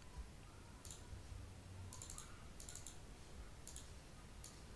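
Faint computer mouse clicks: scattered single clicks and a couple of quick runs of two or three, over a faint low hum.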